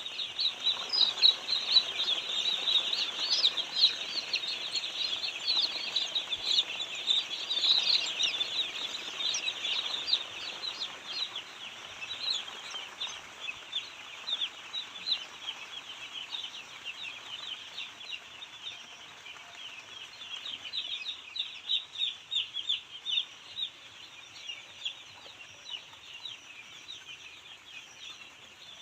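A large flock of chickens in a poultry house, making a dense chorus of many overlapping high-pitched peeping calls. The chorus is busiest in the first half and thins a little later on.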